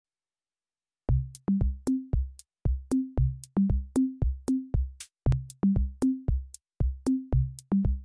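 Electronic intro music: a drum-machine beat of short, bouncy bass notes with sharp clicks, about three a second. It starts about a second in, after silence.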